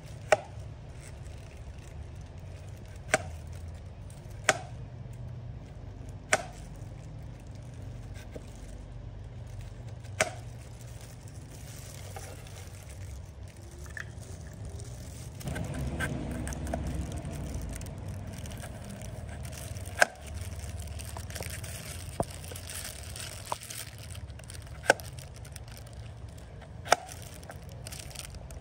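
A cleaver chopping peeled sugarcane into small pieces on a chopping board: about ten sharp single knocks, irregularly spaced a few seconds apart.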